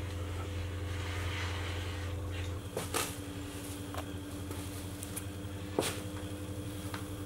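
A steady low mechanical hum that drops a little about two and a half seconds in, with a few sharp clicks and knocks, about three, four and six seconds in.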